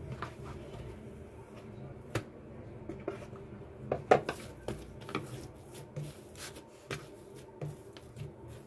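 Hands kneading soft, butter-greased yeast dough on a wooden chopping board: quiet rubbing and soft pats, with one sharper knock about four seconds in.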